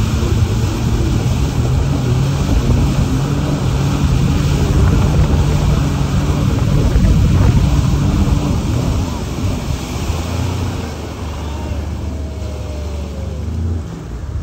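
Towing motorboat's engine running at speed, with water rushing through the wake and wind buffeting the microphone; the engine eases off about ten seconds in.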